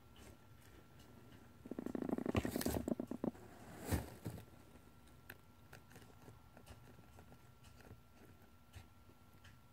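Easter Egger hen purring over her eggs: a low, rapid rattling purr lasting about a second and a half, starting a couple of seconds in, followed by a single sharp tap as her beak touches an egg. Faint scattered ticks run through the rest.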